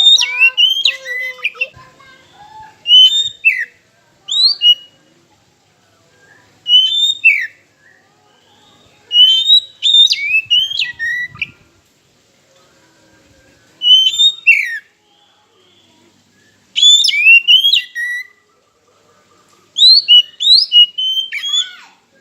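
Oriental magpie-robin singing. It gives short phrases of clear whistled notes that slide sharply up and down, repeated about every two to three seconds with short pauses between.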